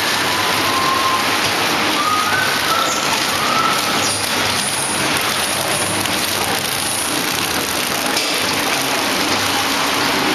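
Pillow-type flow wrapping machine running, a steady, dense noise without a clear beat. A few short high-pitched chirps come in the first four seconds.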